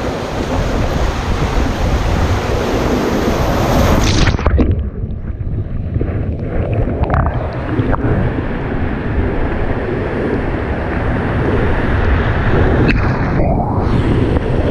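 Whitewater rapids rushing and splashing around an inflatable raft, heard close up with some wind buffeting. About four seconds in, the sound turns duller as the hiss drops away.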